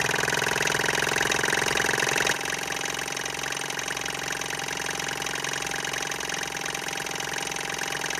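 Small electric motor of a homemade air pump running steadily with a fast buzzing rattle, dropping a little in level about two seconds in.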